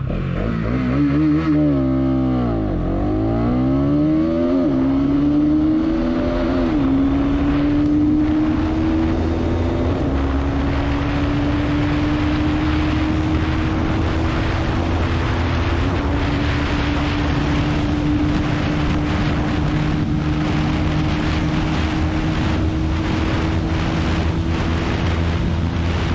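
Bajaj Pulsar NS200's single-cylinder engine at full throttle from a standing start on a top-speed run. It revs up and drops back at each of several quick upshifts in the first sixteen seconds, then holds high revs in top gear with its pitch creeping slowly up. Wind rushes over the microphone louder as the bike nears 130 km/h.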